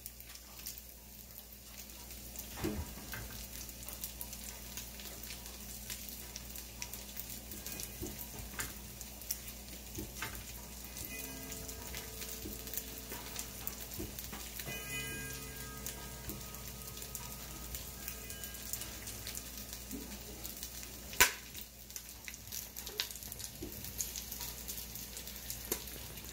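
Low crackle with scattered small clicks and ticks, and one sharper knock about 21 seconds in: a house's fixtures creaking and rattling in earthquake shaking while a hanging light sways.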